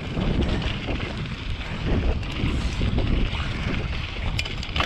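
Wind buffeting the microphone with a gusty rumble while riding a mountain bike, with a few sharp clicks near the end.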